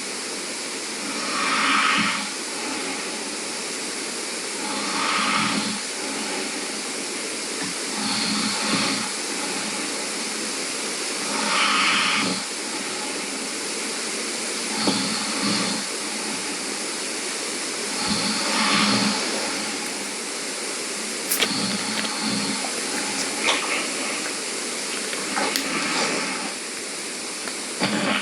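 A person snoring in sleep: noisy breaths swell and fade about every three seconds over a steady hiss, with a few short clicks in the later part.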